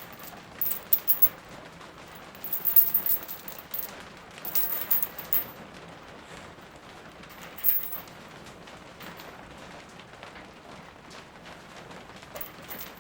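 Steady rain falling, with sharp close clicks and crackles in several short clusters over the first five seconds and once more near eight seconds.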